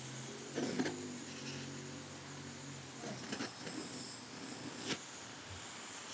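Propane torch hissing steadily as its flame is held on a tray of wood pellets to light them, with a few short sharp sounds about a second in, around three seconds and near five seconds.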